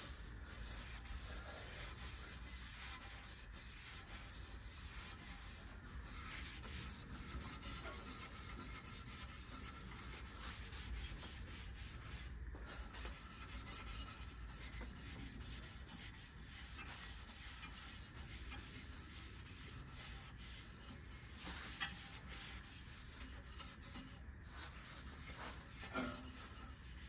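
Faint, steady scrubbing of a red Scotch-Brite abrasive pad on the bandsaw's cast-iron table, wetted with WD-40, rubbing back and forth along the miter slot.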